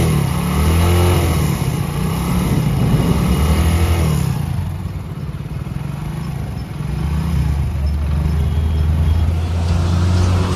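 Freshly rebuilt Hero motorcycle single-cylinder four-stroke engine running after new timing-chain kit and top-end work, which the mechanic says now sounds very good. It is revved up and down a few times in the first four seconds, then settles to a steady run.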